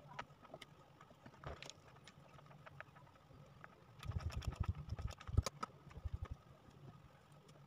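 Crinkling and clicking of wood-grain contact paper as hands press and smooth it onto a wooden cabinet, with a run of quick low thumps of palms patting it down about four seconds in. A steady electric fan hum runs underneath.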